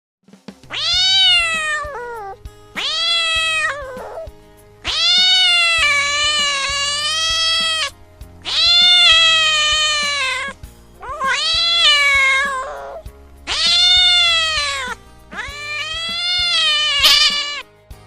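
A cat giving seven long, drawn-out meows one after another, each rising and then falling in pitch.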